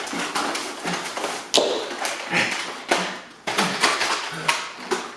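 A rapid, irregular series of sharp taps and knocks, about a dozen in all, the strongest coming about one and a half seconds in and again near three seconds.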